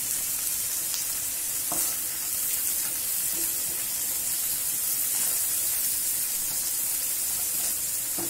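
Chopped onion and green capsicum sizzling in hot oil in a pan, stirred with a wooden spatula: a steady frying hiss with a couple of faint spatula clicks.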